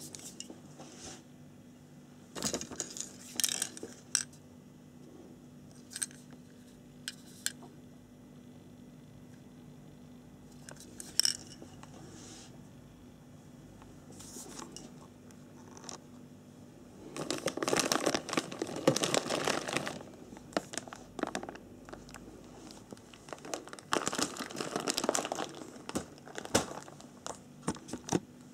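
Clear plastic bags of model-kit parts crinkling and rustling as they are handled in the cardboard kit box, in scattered short crackles with a few light clicks, and two longer, louder spells of rustling, one about two-thirds of the way through and one near the end.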